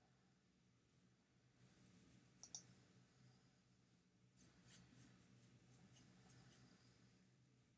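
Faint computer mouse clicks: a brief soft rustle, a quick pair of clicks, then a run of about ten clicks at roughly three a second.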